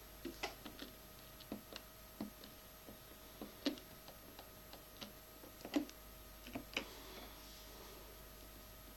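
Yamaha PSR-550 keyboard's panel buttons pressed one after another: short, irregular clicks, a few per second at most, over a faint steady hum.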